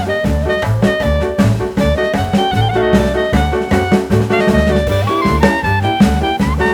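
Background music: upbeat jazz with a steady drum beat and horn-like melody lines.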